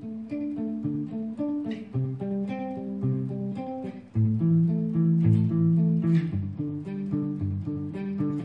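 Guitar played on a clean tone through a Me All Sound MP80D digital delay pedal, set to a 200 ms modulated delay. An improvised run of single picked notes, each trailed by short echoes. It gets louder about four seconds in and stops just before the end.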